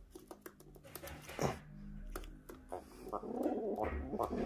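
Domestic pigeon cooing: a low, rolling, throbbing coo that starts about three seconds in, with a few faint clicks before it.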